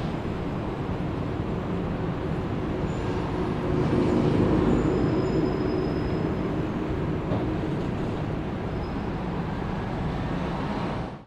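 City street ambience: a steady rumble of traffic, with one vehicle passing louder about four seconds in. The sound fades out abruptly near the end.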